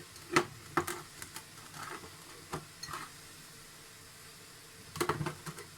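Coarse salt crunching and rubbing as salted lemons are pressed and packed by hand, with a few short knocks and clicks scattered through, clustering about five seconds in.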